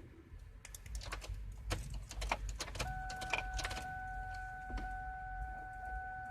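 A series of clicks and rattles, then a steady electronic warning tone from the car comes on just under three seconds in and keeps sounding.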